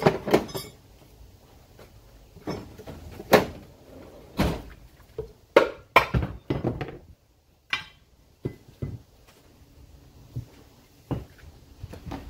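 Ford 6.0 Power Stroke VGT turbocharger being struck with a hammer, about a dozen irregular thunks as a housing is knocked loose for removal.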